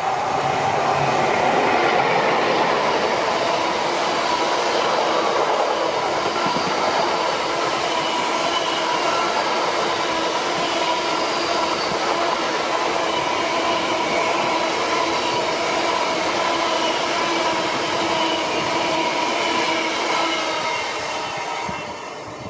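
A train passing close by: a steady rush of wheel and running noise with several high whining tones held over it, swelling in at the start and dropping away near the end.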